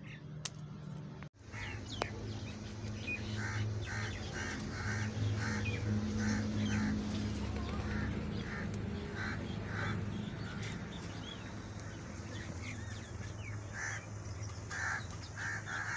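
Crows cawing in runs of short, evenly spaced calls, several times, over a steady low rumble.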